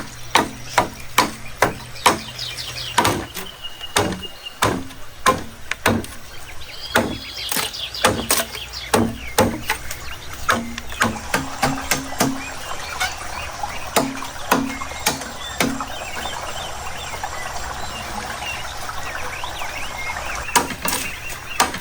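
Rapid, rhythmic chopping: a blade striking a board about three times a second, with a pause of a few seconds of steady hiss before the strokes resume near the end.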